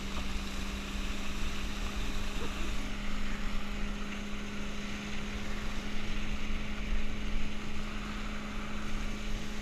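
Steady rush of wind and water on a head-mounted GoPro riding a towed inflatable tube across the wake, with a steady hum from the towing motorboat's engine underneath.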